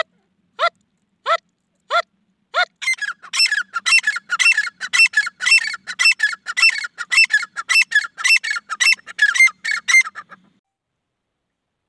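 Grey francolin calling: a few single falling notes about two-thirds of a second apart, then a fast run of loud, repeated ringing phrases that lasts about eight seconds and stops.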